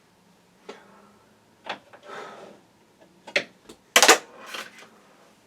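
Screws and metal parts of a PC case and drive bay being handled: scattered clicks and clatters with a brief scrape, and a sharp knock about four seconds in.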